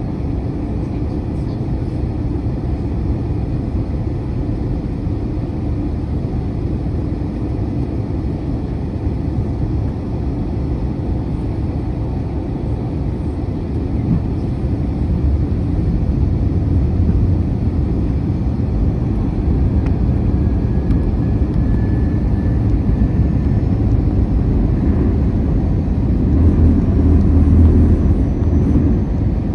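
Airbus A321-200 cabin noise in flight: a steady low roar of engines and airflow, growing somewhat louder about halfway through and again near the end.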